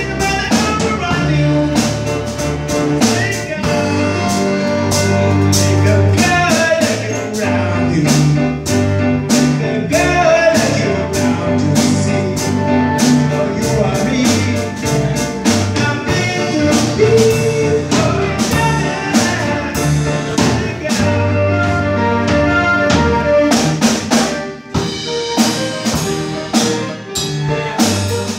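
A live rock band playing a song: a drum kit keeping a steady beat under bass, electric guitar and keyboards, with a lead vocal.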